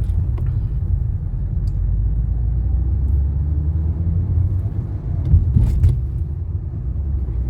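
Low, steady rumble of a car being driven on the road, heard from inside the vehicle, with a couple of short knocks about five and a half seconds in.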